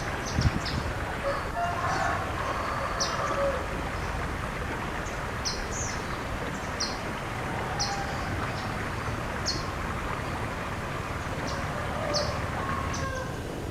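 Rural birdsong: a small bird repeating a short, high chirp about once a second, over a steady outdoor background hiss. A rooster crows once about two seconds in.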